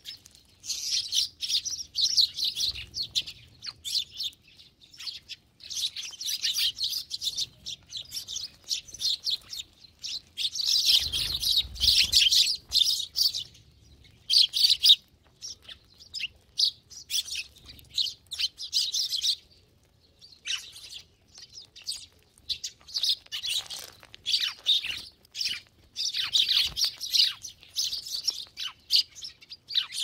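A flock of Eurasian tree sparrows chirping: many short, high chirps overlapping in busy bursts, with a few brief lulls.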